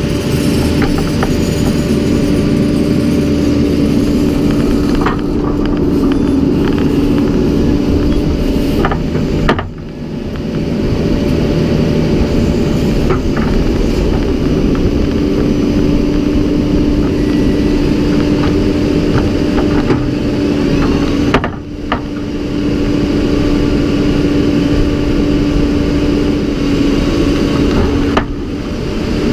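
Farm tractor engine running steadily with a constant hum, briefly dropping away three times.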